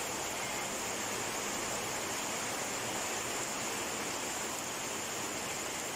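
Rain falling steadily, an even hiss with no let-up, with a thin steady high note running through it.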